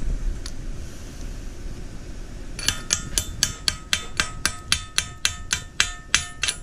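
Welding chipping hammer tapping rapidly on a freshly laid stick weld on a steel hay fork, chipping off the slag. The strikes start about two and a half seconds in, run evenly at about four a second, and each one rings metallically.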